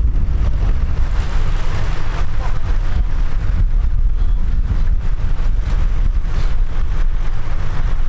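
Vintage tractor engines running steadily while pulling ploughs, with wind buffeting the microphone.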